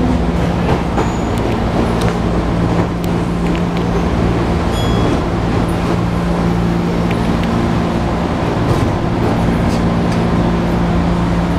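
JR 205 series 1000-subseries electric train running, heard from inside the passenger car: a steady rumble of wheels on rail with a low, even hum and a few short clicks.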